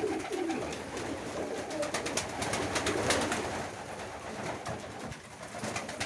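Domestic pigeons cooing, with many quick, sharp clicks as they peck grain from a feeder trough.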